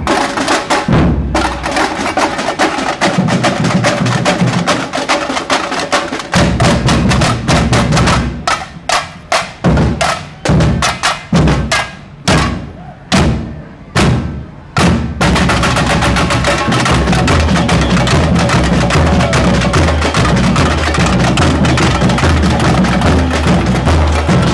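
Samba bateria playing: surdo bass drums, snare drums and tamborims in a dense, driving groove. About eight seconds in the band breaks into a run of separate accented hits with short gaps, then the full groove comes back with the surdos' repeating bass beat about fifteen seconds in.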